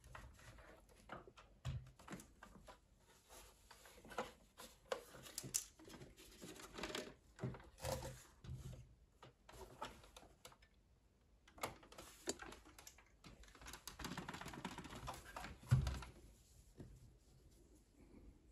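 Irregular clicks, taps and light plastic rattles from the opened chassis of a Sony SLV-X312 VCR as it is handled and tilted by hand, with a stretch of rubbing and scraping and then a single dull thump near the end.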